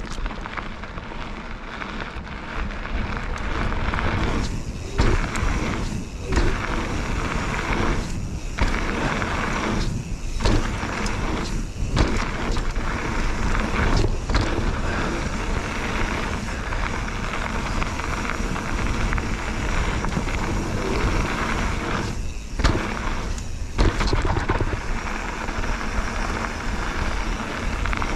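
Full-suspension mountain bike (Bird Aeris 145) running fast down a jump trail. Wind rushes over the mic while the tyres roll on gravel and the chain and suspension rattle. The rushing noise breaks off for a moment again and again, several times in a row and again near the end, with sharp knocks as the bike leaves the ground over jumps and lands.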